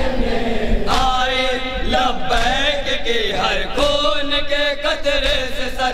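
A group of men chanting a nauha (Shia lament) in unison through a PA system, with the sharp slaps of chest-beating (matam) by the mourners falling in time with it, coming faster in the second half.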